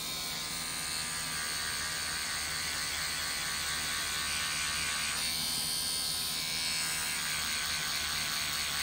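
Pen-style rotary tattoo machine running with a steady buzz as its needle works ink into the skin.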